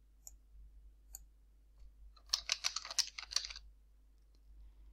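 Typing on a computer keyboard: two separate key clicks, then a quick run of keystrokes lasting about a second and a half as a short file name is typed.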